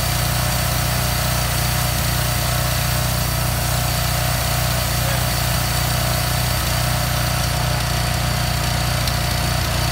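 Heavy container-delivery truck's diesel engine running steadily, with a steady high whine over its low drone.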